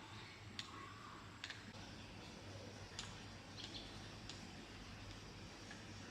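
A few faint, light clicks at irregular intervals, over a low steady hum.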